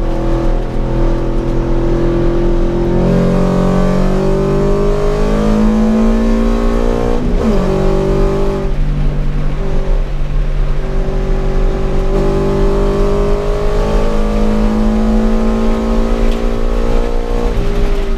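Toyota GT86's flat-four engine heard from inside the cabin while lapping on track, the revs climbing steadily. There is a quick dip in revs about seven seconds in, then the engine pulls up through the revs again.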